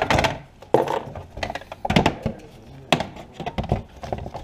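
Plastic engine cover of a Ford Fiesta ST being set onto the engine and pressed down onto its mounts: a string of sharp plastic knocks and clunks, about six in all.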